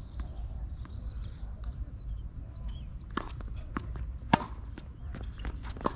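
Sharp knocks of a tennis ball being hit with rackets and bouncing on the court. They start about halfway through, and the two loudest come about a second and a half apart, over a steady low rumble.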